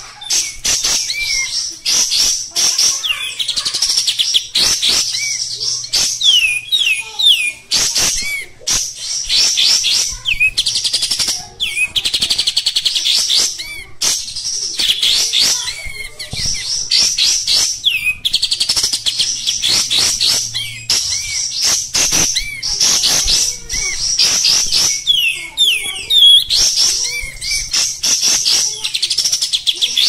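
Olive-winged bulbul (kapas tembak) singing its coarse ('kasar') song without let-up: fast runs of quick repeated chattering notes in phrases of a second or two, with short breaks between them.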